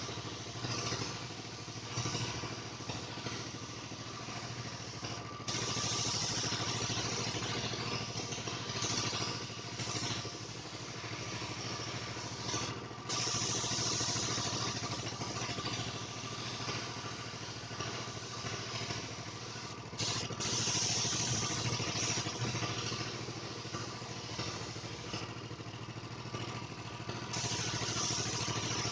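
A motor running steadily with a low hum. Loud hissing comes in over it in long stretches of several seconds that start and stop abruptly.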